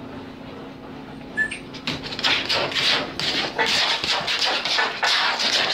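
A small puppy whimpering and making play-attack noises, with a burst of close scuffling and rubbing from about two seconds in as it jumps at the phone.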